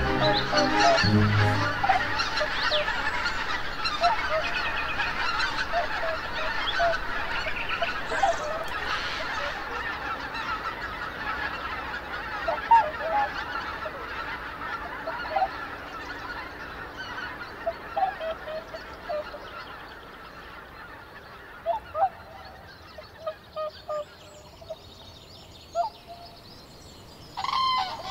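A large flock of geese honking and calling together in a dense chorus that gradually fades, thinning to scattered single honks in the later part.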